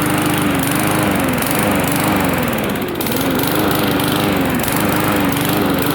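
PowerSmart 170cc lawn mower's single-cylinder four-stroke engine running just after its first start, its speed wavering, dipping and recovering several times.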